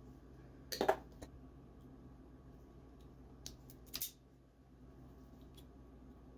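A few short, sharp clicks and snips of hand tools and wiring parts being handled, about a second in and again twice between three and a half and four seconds in, over a faint steady hum.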